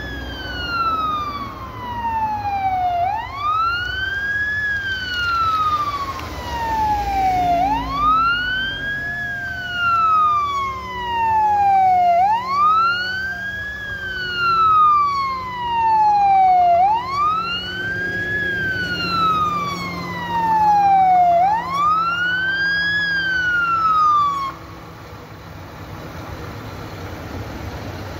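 Fire engine's electronic wail siren sounding on an emergency run: each cycle sweeps up quickly, then falls slowly, about every four and a half seconds, over the truck's engine. The siren cuts off suddenly a few seconds before the end, leaving the engine running.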